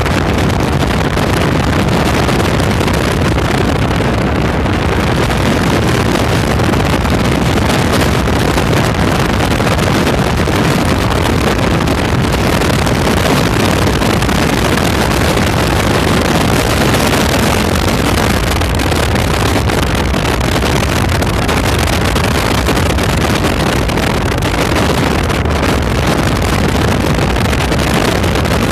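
A river ferry running under way, its engine noise mixed with wind rushing over the microphone. It is loud and steady throughout.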